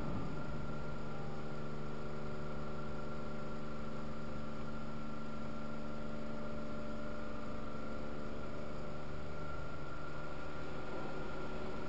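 Car engine idling steadily, heard from inside the cabin as a constant hum with a few steady tones.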